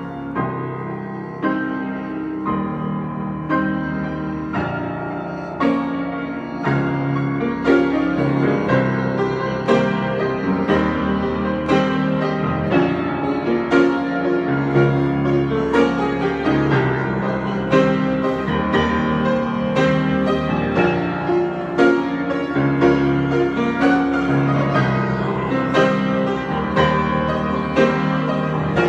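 Solo piano improvisation: chords and melody notes struck in a steady pulse, growing louder about a quarter of the way in.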